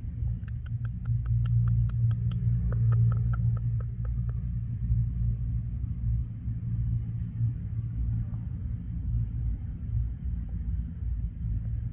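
A possum sneezing in a quick run of short, sharp clicks, about four a second, that stops about four seconds in. A steady low rumble runs underneath and is the loudest sound.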